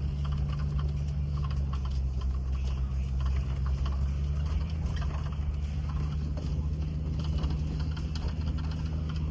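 Land Rover Discovery crawling slowly over a rough trail: a steady low engine drone with frequent irregular knocks and rattles from the body and suspension over the bumps.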